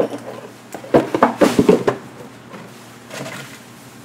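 Cardboard and plastic card-box packaging handled by hand: a quick cluster of knocks and crinkly rustles about a second in, then a fainter rustle near the end.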